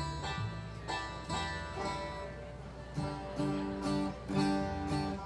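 Acoustic stringed instruments, a banjo among them, being tuned: single notes and small groups of notes plucked one after another with short gaps, not a tune.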